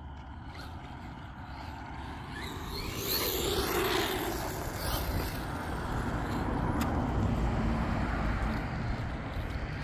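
Road traffic: a steady low rumble of passing cars that swells about three seconds in and stays loud.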